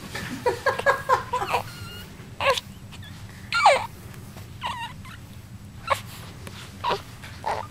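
Newborn baby fussing with a string of short squeaks and whimpers, a quick cluster of them about half a second in, then one about every second, some wavering or falling in pitch.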